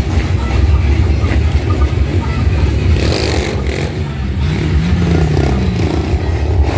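Vehicle engine running with a loud, deep rumble; its pitch rises and falls once about five seconds in, as in a rev. Voices of people around are mixed in.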